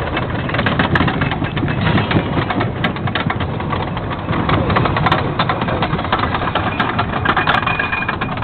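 The Beast wooden roller coaster's train rumbling and clattering along its wooden track, with dense rapid knocks from the wheels.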